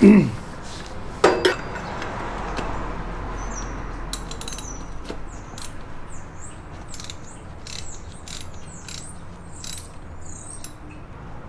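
Tools working the engine's oil filter loose: two loud metal knocks near the start, then a run of sharp, irregular ratchet-like clicks and short high squeaks as the filter is turned off.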